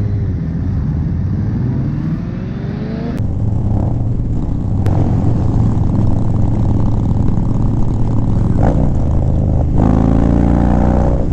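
Motorcycle engine climbing in pitch as the bike accelerates. After a cut, another motorcycle runs at a steady speed with a low engine drone, then revs up again near the end.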